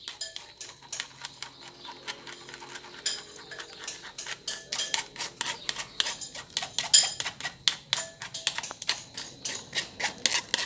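Metal spoon scraping and clicking against a plastic sieve as blended passion fruit mixture is pressed through the mesh: quick, irregular clicks and scrapes.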